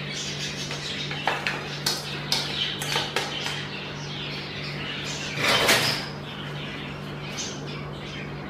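Steel spoon tapping and scraping against a stainless-steel colander as cooked rice is tipped out into a pot, with a louder scraping rasp a little past halfway. A steady low hum runs underneath.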